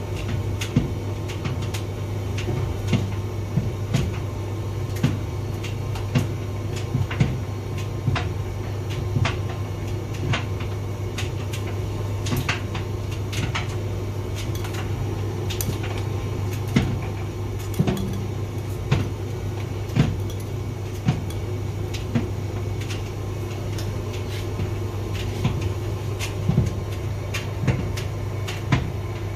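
Hotpoint vented tumble dryer running: a steady low hum from the motor and turning drum, with irregular knocks and clicks as the load tumbles against the drum.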